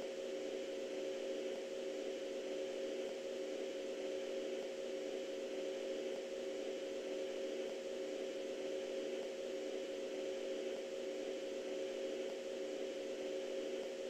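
A steady electronic hum of several held low tones over a faint even hiss, unchanging throughout.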